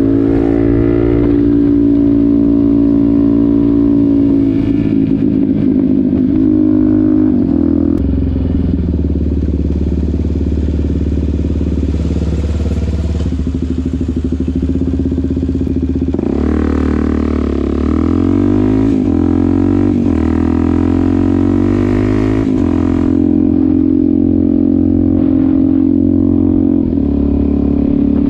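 Suzuki DR-Z400SM supermoto's single-cylinder four-stroke engine and exhaust running while the bike is ridden, heard from the rider's position. It runs steadily for stretches, and its revs rise and fall repeatedly in the middle of the stretch.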